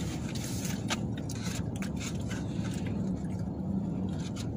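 Steady low hum of a car's idling engine heard inside the cabin, with a few light clicks and scrapes of things being handled.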